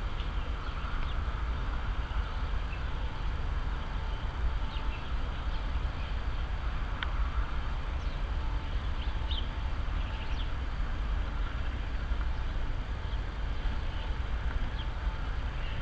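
Outdoor background: a steady low rumble with a few faint, short bird chirps.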